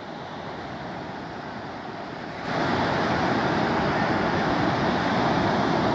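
Surf and wind on the beach, a steady rushing noise that grows suddenly louder about two and a half seconds in.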